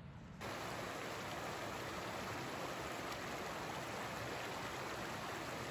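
Steady rush of running water, like a mountain stream, cutting in suddenly about half a second in and holding even throughout.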